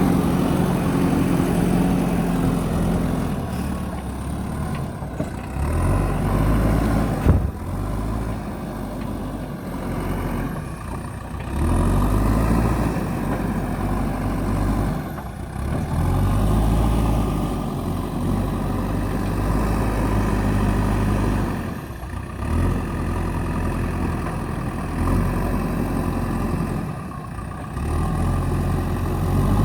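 JCB backhoe loader's diesel engine running, revving up and settling back several times. There is a single sharp knock about seven seconds in.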